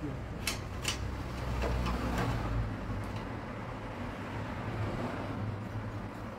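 A few sharp metallic clicks of hand tools and parts being handled on the machine's gear mechanism, over a low rumble that fades out about two and a half seconds in.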